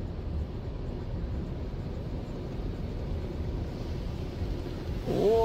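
Automatic tunnel car wash heard from inside the car's cabin: a steady low rumble as the hanging cloth mitter curtains and water spray work over the windshield, with the spray hiss growing near the end. A brief held voice-like tone comes near the end.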